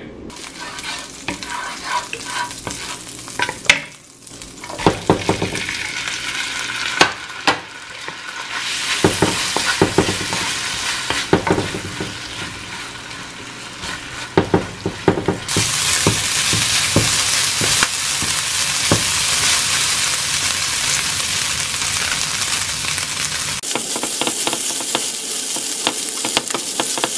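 Shredded chicken frying in butter in a nonstick frying pan, sizzling as it is stirred and scraped with a wooden spoon, with short knocks of the spoon against the pan. The sizzle grows louder and steadier about halfway through.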